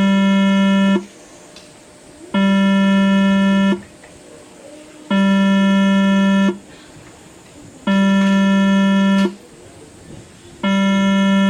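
Station train-approach warning buzzer sounding a steady, low, buzzy electronic tone in an on-off cycle, each tone lasting about a second and a half with a similar gap, signalling that a train is approaching.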